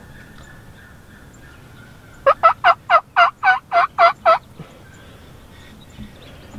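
Turkey calling: a run of about nine quick, loud notes, each dropping in pitch, lasting about two seconds and starting about two seconds in.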